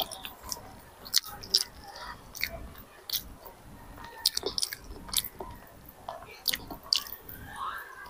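Children chewing instant fried noodles (pancit canton) close to a clip-on microphone, with frequent wet mouth clicks and smacks at irregular intervals.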